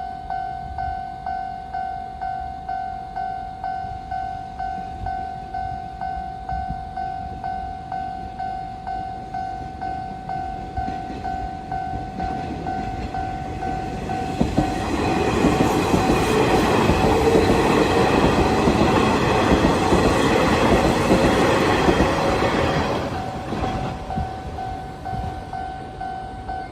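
Japanese railroad crossing warning bell ringing steadily at about one and a half strokes a second. About halfway through, a Nishitetsu 5000 series electric train passes the crossing, loud for about nine seconds and drowning out the bell, then fading as the bell keeps ringing.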